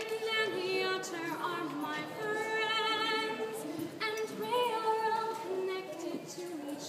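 A woman singing unaccompanied in long held notes with vibrato.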